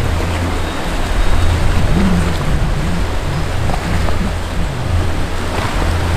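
Boat outboard motors running, their pitch wavering up and down, over the rush of churning, choppy water.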